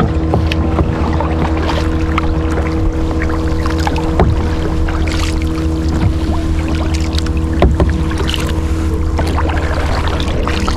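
Sea kayak paddle strokes dipping into calm water, with splashes and drips off the blades, over a steady low hum.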